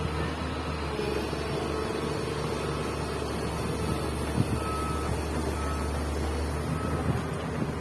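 Komatsu PC200 excavator's diesel engine running steadily, with its travel alarm beeping about once a second as the machine tracks.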